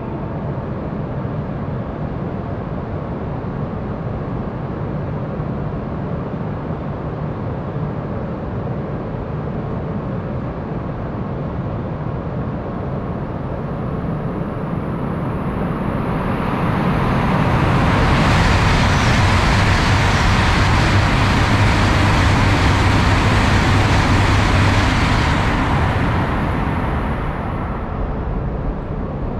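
A Tohoku Shinkansen bullet train passing through the station without stopping: a steady hum, then a rushing noise that swells from about halfway, stays loud for some eight seconds, and dies away near the end.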